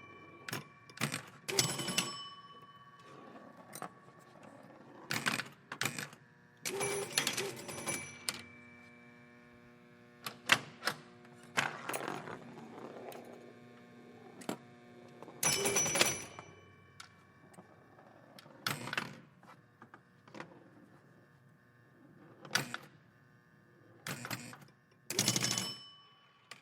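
Pinball machine being played: irregular bursts of sharp mechanical clacks from the flippers and bumpers, several of them followed by ringing bell tones, over a faint steady hum.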